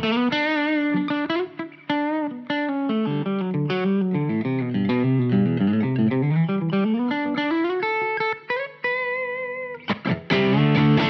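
Fano Omnis MG6 Mustang-style electric guitar with P-90 pickups, played through an amp: picked single-note lines with wide vibrato on the held notes, a run that steps down and climbs back up, and denser struck notes near the end.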